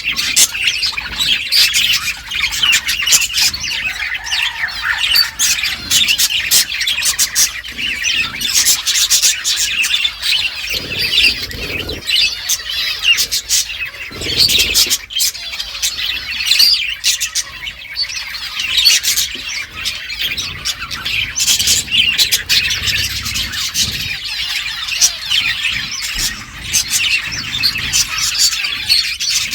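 Budgerigars chirping and chattering continuously in dense, overlapping high chirps and squawks, with scattered sharp clicks.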